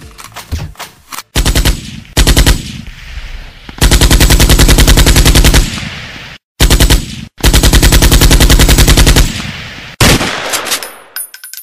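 Automatic machine-gun fire: several bursts of rapid shots, the two longest about two seconds each, each trailing off in echo.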